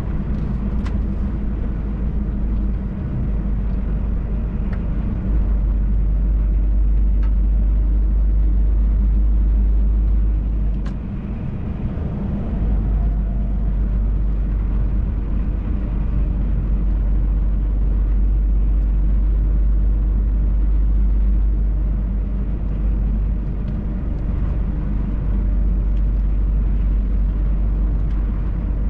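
MAN TGX truck's engine and road rumble heard inside the cab while driving: a steady low rumble that briefly eases about eleven seconds in.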